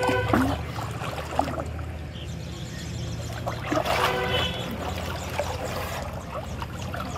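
Pond water trickling and sloshing as a cast net is gathered by hand in shallow water and lifted out dripping, over a steady low hum.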